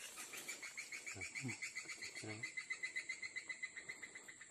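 A bird calling in an even, rapid run of short high notes, about six or seven a second, with a steady thin high whine behind it. A few soft, short voice sounds come about one and two seconds in.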